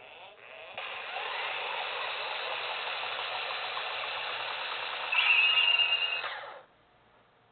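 Kamen Rider Kuuga CS-edition toy transformation belt playing an electronic sound effect through its small built-in speaker, thin and tinny. After a couple of short pulses, a steady whirring hiss starts about a second in. About five seconds in it jumps louder with a bright high tone, and it cuts off suddenly near the end.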